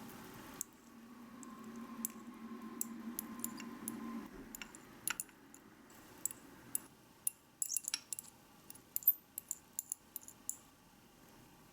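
Light clicks and taps of small utensils against miniature cookware, coming thick and irregular through the second half. They follow a low steady hum that stops about four seconds in.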